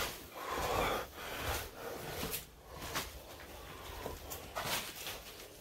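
Soft scuffs and rustles of people moving about quietly, in short irregular strokes with a brief hiss of breath or whisper at the start.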